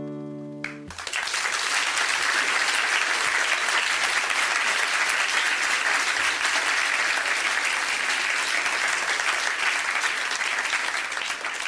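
The last guitar chord of a song dies away, then an audience applauds steadily, fading out at the very end.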